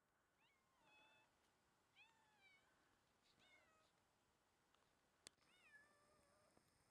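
Kittens meowing faintly: about five short, high calls spread over several seconds, with one sharp click a little after five seconds in.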